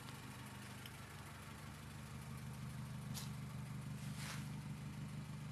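Honda Civic sedan's engine idling steadily with an even low hum.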